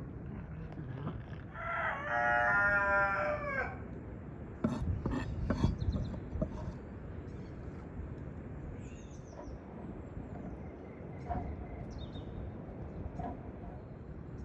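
A rooster crows once, a single drawn-out call of about two seconds, followed about a second later by a few sharp knocks.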